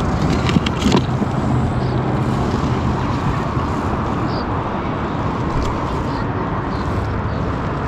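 Steady rushing background noise on the microphone, with a few knocks about half a second to a second in as a trout is grabbed off the plastic kayak deck.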